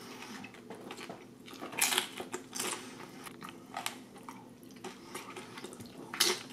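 Close-up chewing and crunching of loaded multigrain corn tortilla chips, made up of a handful of short crisp crunches between quieter chewing. The loudest crunches come about two seconds in and again near the end.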